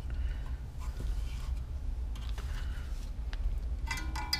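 Small clicks and rustles of a circuit board being handled and turned over on a workbench, over a steady low hum. Near the end comes a short metallic rattle and ring as a soldering iron is pulled out of its coiled-spring holder.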